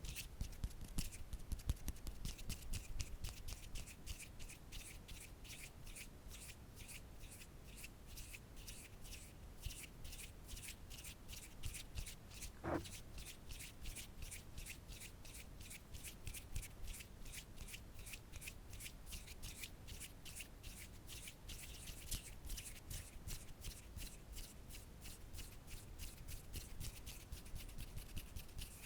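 Close-miked ASMR trigger: a hand making fast, even, crisp scratching strokes on an object, several a second. There is a single soft knock about halfway through, and the strokes stop suddenly at the end.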